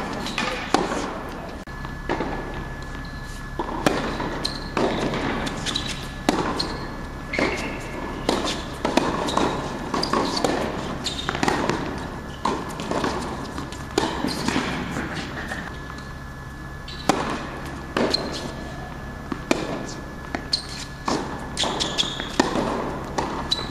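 Tennis rally on a hard court: repeated sharp hits of rackets striking the ball and the ball bouncing, coming irregularly about every second or two.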